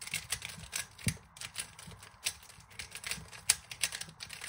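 Plastic 3x3 Rubik's cube being scrambled by hand: quick, irregular clicking and clacking as its layers are twisted, several turns a second, with one sharper click about three and a half seconds in.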